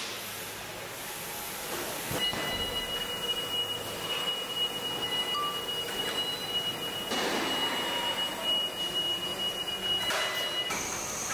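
Car-factory body-shop machinery noise from industrial robots and welding equipment, a steady mechanical din. A thin, steady high whine starts about two seconds in and stops near the end, and there are two short hissing swells in the second half.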